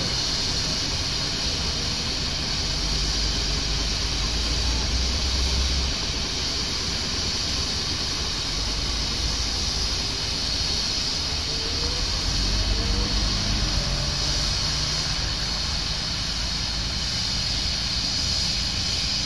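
Steam traction engine in steam, a steady hiss of escaping steam with a low rumble that comes and goes.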